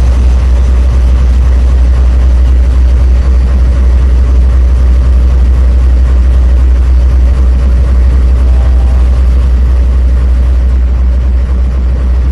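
Union Pacific train going by: a loud, steady, low rumble with a constant rushing noise over it.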